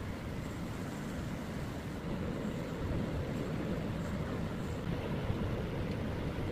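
Steady low-pitched background noise with no distinct events.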